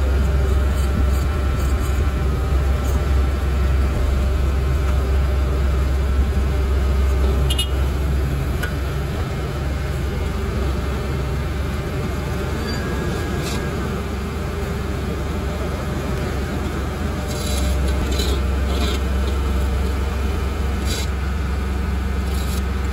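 Asphalt finisher's diesel engine running steadily with a low hum and machinery noise. It eases off about eight seconds in and picks up again about three-quarters of the way through, with a few light clicks.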